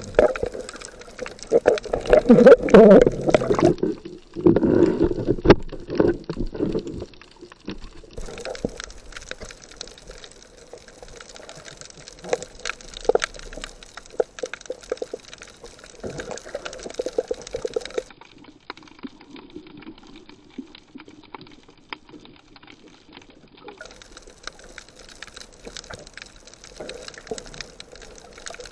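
Water sloshing and gurgling close around the microphone of a diver or snorkeler, loud and irregular for the first several seconds, then quieter, crackly water noise.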